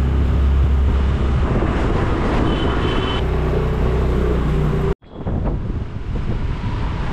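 A motor vehicle engine running with road noise, a steady low hum. About five seconds in it cuts off abruptly and a quieter hiss follows.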